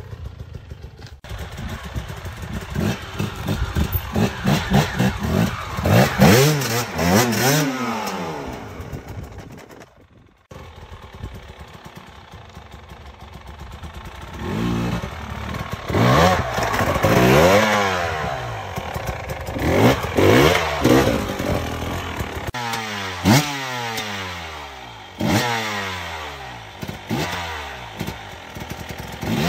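Enduro dirt bike engines revving in repeated short bursts, their pitch rising and falling with each blip of the throttle. The sound drops out briefly about ten seconds in, then the revving carries on.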